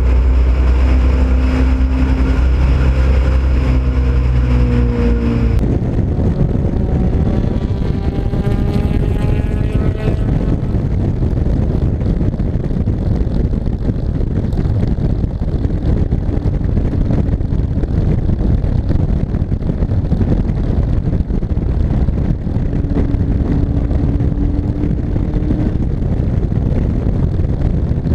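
Ford Pinto race car's engine running hard at steady high revs. About six seconds in, the sound changes suddenly to mostly wind rushing over the microphone, with the engine faint beneath it, rising in pitch as the car accelerates.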